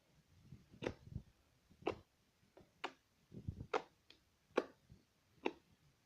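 Homemade slime being squeezed and folded in the hands, giving sharp wet clicks and pops about once a second, with softer squishes between.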